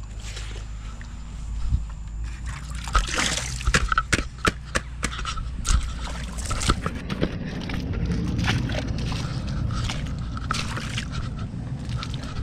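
Wellington boots squelching and sloshing through waterlogged mud, with a run of sharp knocks and clicks in the middle few seconds.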